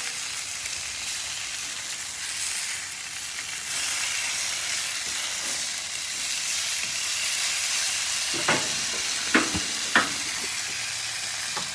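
Marinated chicken pieces sizzling on a hot steel flat-top griddle: a steady frying hiss. Near the end the metal spatula clicks against the griddle plate three times as the pieces are pushed together.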